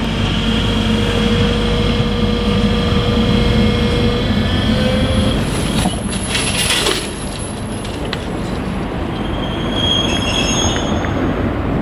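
DB class 294 (V90) diesel-hydraulic shunting locomotive running slowly over curved track and points. Its diesel engine rumbles steadily, and wheel flanges squeal in thin high tones. There is a brief harsh burst of noise about six seconds in, and more squealing near the end.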